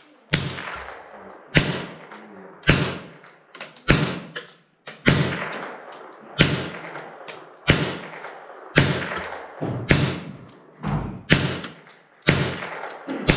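Rifle shots fired one after another at a steady pace, about one a second, a dozen in all. Each sharp crack trails off in an echo under the covered firing line.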